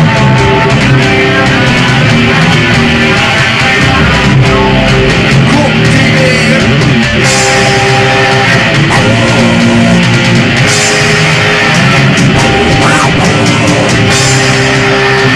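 Live heavy metal band playing loudly, with distorted electric guitar holding sustained chords over a drum kit.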